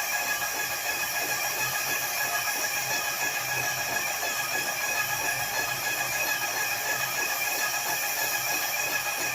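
Paint-spraying machine running: a steady hiss with a low pulsing hum underneath and a few fixed whistling tones, with no break in the sound.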